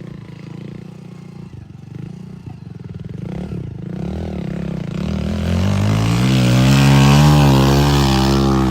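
A heavy machine's diesel engine running, then revving up from about four seconds in and running hard and loud, its pitch wavering up and down.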